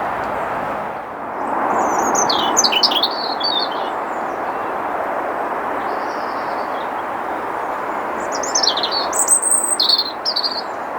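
Strong storm wind rushing steadily, with a small songbird singing quick warbling phrases over it about two seconds in and again near the end.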